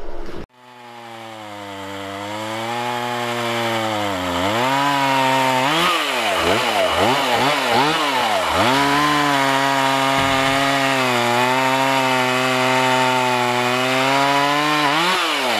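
Two-stroke chainsaw running while bucking felled trees into firewood rounds. Its engine note dips and climbs several times in quick succession, then holds high and steady while it cuts.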